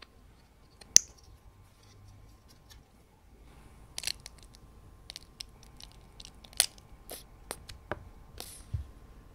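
Plastic flip-top cap of a tube of glitter paint snapping open with one sharp click, then a run of small irregular clicks and crackles as the glitter paint is squeezed out of the tube onto clear slime.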